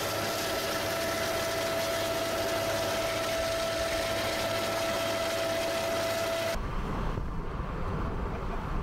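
Steady engine noise with a high whine. About two thirds of the way through it cuts off abruptly and gives way to wind buffeting the microphone over the low rumble of a boat at sea.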